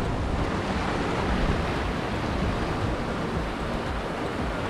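Sea surf washing steadily against concrete breakwall blocks, with wind buffeting the microphone.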